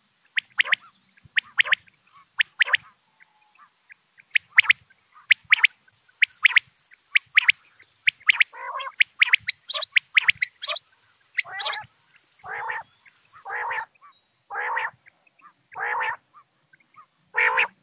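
Quail calling repeatedly: short, sharp notes, mostly in quick pairs about once a second, joined about halfway through by longer, lower calls.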